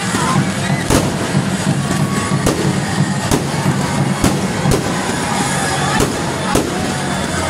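Aerial fireworks going off overhead: a string of sharp bangs, about one a second, over a steady background din.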